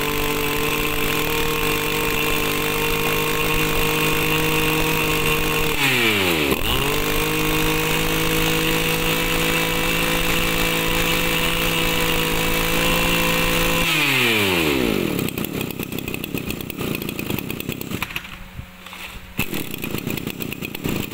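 Echo 265 brush cutter's 26cc two-stroke engine revved to full throttle for about six seconds. It dips briefly as the throttle is let off, comes straight back up and holds at full throttle for about eight seconds, then drops back to idle.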